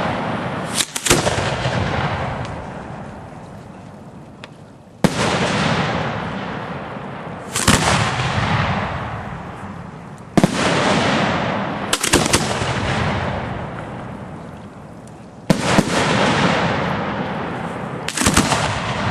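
Professional aerial firework shells bursting: about eight sharp bangs every two to three seconds, some in quick pairs, each trailing off in a long fading rumble.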